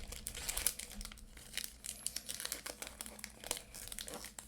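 Plastic wrapper of a basketball trading card pack crinkling as it is torn open and handled, with dense irregular crackles and a louder burst at the start.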